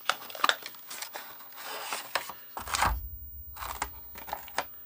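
Cardboard box and clear plastic blister pack being handled as a small Bluetooth speaker is pulled out of its packaging: scraping, crinkling and clicking of cardboard and plastic, with a heavier thump a little past halfway.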